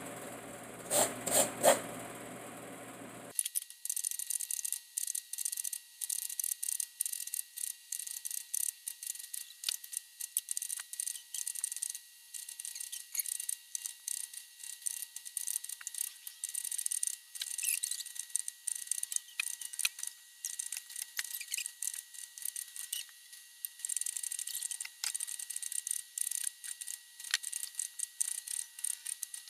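Coconut being grated by hand on a kudkuran, a bench-mounted serrated metal scraper. The coconut half is pushed across the blade in short rasping strokes, about two a second. A few sharp knocks come in the first couple of seconds.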